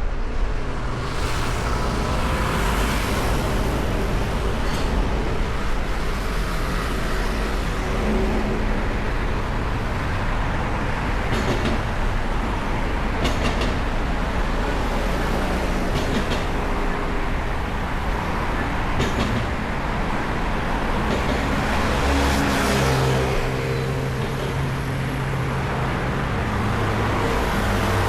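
Busy city street traffic: engines running and tyres on the road, swelling as vehicles pass close by, with a steady engine drone near the end.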